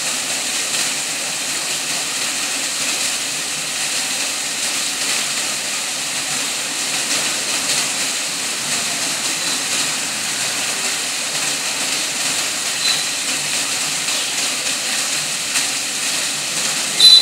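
Fountain water cascade and foam jets splashing, a steady high rush of falling water. A brief high chirp sounds right at the end.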